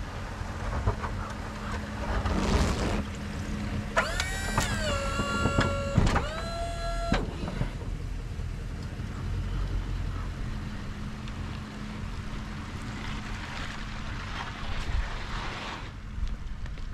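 2009 Ford F-250 pickup running, heard from the cab. About four seconds in, an electric-hydraulic snowplow pump whines for about three seconds as it raises or angles the blade; its pitch dips as it takes the load, then holds until it cuts off.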